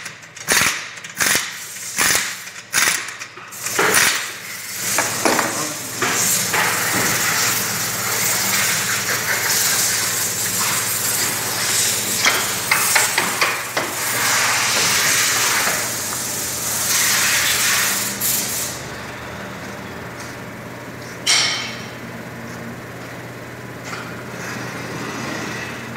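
Pneumatic impact wrench undoing a van's wheel nuts: a run of short rattling bursts over the first few seconds, then a long steady noise until about 18 s in, and one more short burst a little after 21 s.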